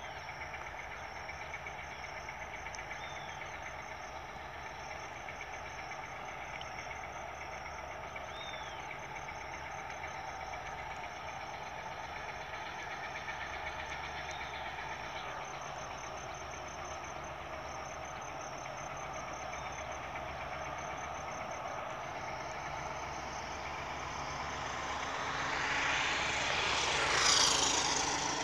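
Steady distant drone of a diesel locomotive as the train approaches slowly. Near the end a motorcycle passes close by, swelling to the loudest sound and then dropping in pitch as it goes past.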